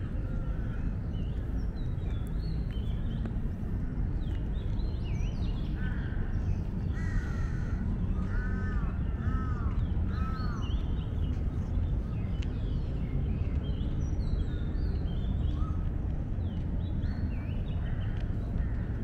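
Crows cawing, a run of about five calls between six and eleven seconds in, while small birds chirp throughout over a steady low background rumble.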